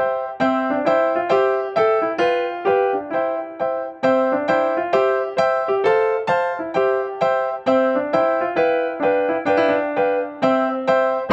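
Background piano music: a gentle melody of single struck notes, about three a second, each note ringing and fading.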